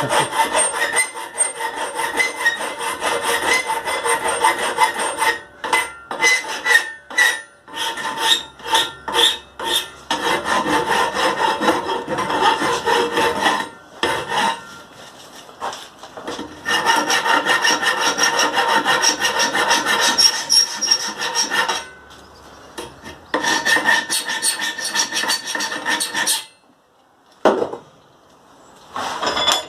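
Hand file rasping over the cut edges of a metal pipe in quick repeated strokes, taking off sharp burrs and straightening the cuts. The filing pauses briefly a few times and stops near the end.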